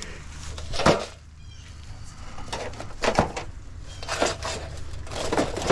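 Scrap metal being handled: a few separate clanks and knocks, the loudest about a second in.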